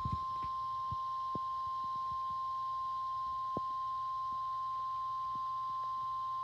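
NOAA Weather Radio warning alarm tone: a single steady 1050 Hz tone held unbroken, the signal that a warning broadcast, here a severe thunderstorm warning, is about to follow. A few faint knocks sound in the background.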